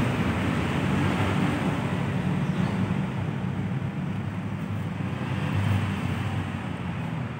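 Steady low rumble of road traffic passing by.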